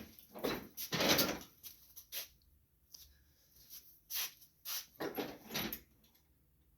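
Irregular metallic clanks and scrapes as the riding mower's deck linkage and front pin are worked loose by hand, the loudest about a second in and a cluster more near the end.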